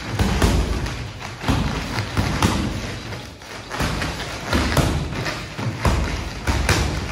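Irregular heavy thuds, about one or two a second, of bodies and feet hitting the grappling mats during jiu-jitsu training.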